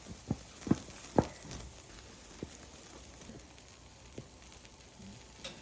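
Meat sizzling faintly over a wood fire, with a few short knocks scattered through, the loudest about a second in.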